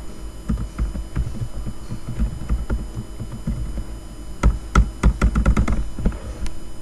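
Typing on a computer keyboard and mouse clicks, irregular taps with a quicker run of louder clicks about four and a half seconds in.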